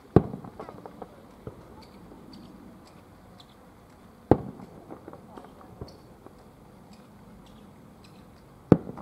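Aerial firework shells bursting: three sharp booms about four seconds apart, each followed by a decaying tail of smaller pops and echoes.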